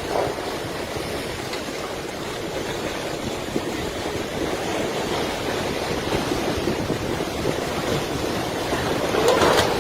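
Steady rushing noise that grows louder near the end.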